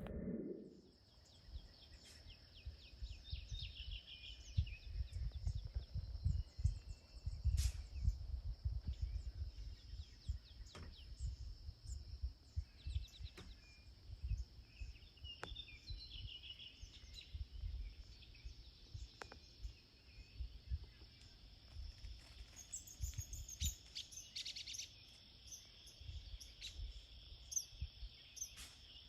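Rural outdoor ambience: songbirds chirping on and off over a steady, high insect drone, with gusty low rumbles of wind on the microphone and a few sharp clicks.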